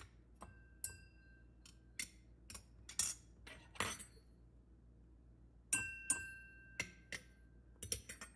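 Forks tapped against a wine glass and a champagne flute, about eighteen quick clinks in two runs with a short pause between. Some strikes ring on with a clear tone for up to a second, as glass does, while others stop short and dull; one of the glasses and one of the forks are plastic, the others real glass and steel.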